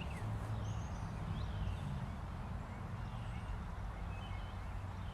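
Outdoor ambience: a steady low hum with short bird chirps here and there.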